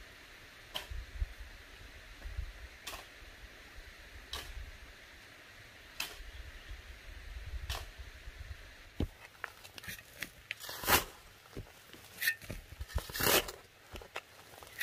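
A hoe chopping into dry soil, one stroke every couple of seconds at first, then louder, quicker strikes from about nine seconds in.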